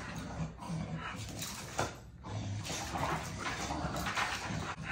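Two American bully dogs moving about close up, breathing noisily in short irregular spells, with light clicks of claws on a hard floor.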